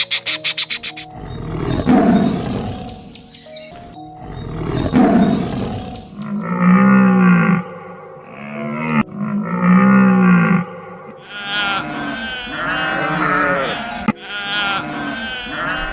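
A string of different animal calls one after another: two rough roaring calls, then two long low calls, then a run of wavering, bleating-like calls.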